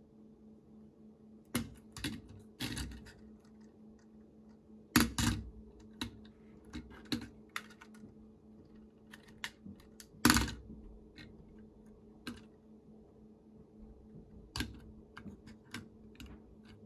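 Plastic Lego fighter jet model being handled: irregular clicks and knocks of its plastic parts and of the model touching a wooden tabletop, the two loudest about five and ten seconds in. A faint steady low hum lies underneath.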